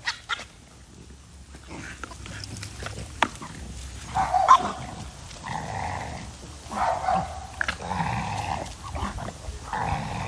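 A dog vocalizing: quiet at first, then a string of short calls, about one a second, from about four seconds in.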